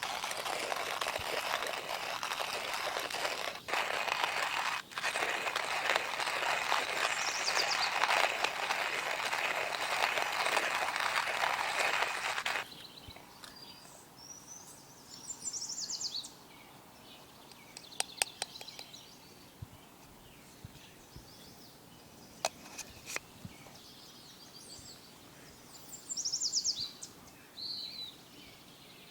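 A steady loud hiss that cuts off suddenly about twelve seconds in, followed by birds chirping now and then, with a few sharp clicks.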